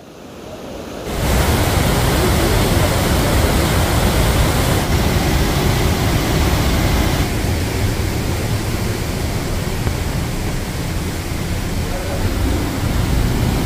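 Rhine Falls, Europe's largest waterfall, in high flow: a loud, steady rush of falling water that starts abruptly about a second in.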